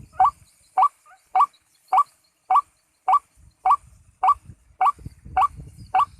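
White-breasted waterhen (ruak-ruak) call: short rising notes repeated at an even pace, a little under two a second, typical of the lure call used to trap the bird.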